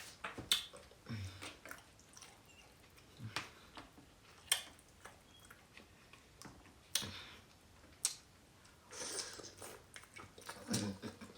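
Close-up chewing and mouth sounds of a person eating fufu with oxtail: irregular sharp clicks and short smacks, spaced unevenly.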